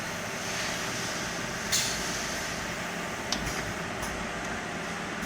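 Automatic friction welding machine running steadily during its auto-loading of new piston rods. Two short, sharp hisses of air come about two seconds in and again about a second and a half later.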